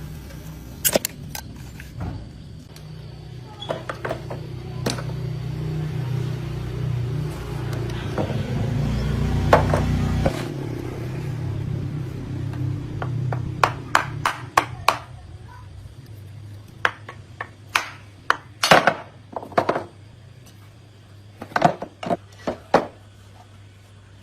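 An engine running steadily that stops suddenly about ten seconds in. After it stops comes a long series of sharp knocks and clanks, some in quick clusters, typical of tools working on metal.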